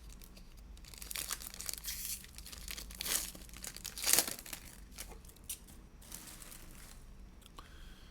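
A foil trading-card pack wrapper being torn open and crinkled, in a series of rips with the loudest about three and four seconds in.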